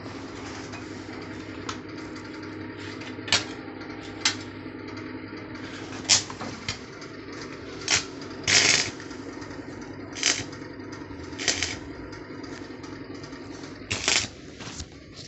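Gas cutting torch working on a motorcycle's metal: about eight short, sharp hissing blasts, the longest near the middle, over a steady low hum.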